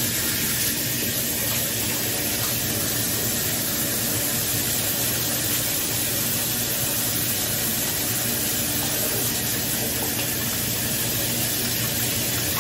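Kitchen faucet running in a steady stream into the sink while hands are washed under it.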